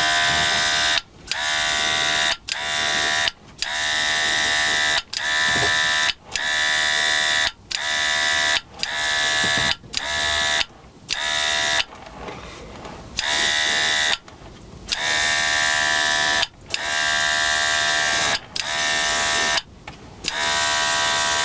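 Battery airbrush spraying acrylic weathering paint: its small motor buzzes under a hiss of air, triggered in short spurts of about one to three seconds, roughly a dozen times with brief pauses between.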